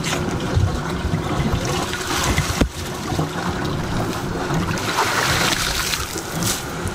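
Canal water sloshing and trickling as a boat hook drags clumps of waterweed up out of the water beside a boat's hull, with a single sharp knock about two and a half seconds in.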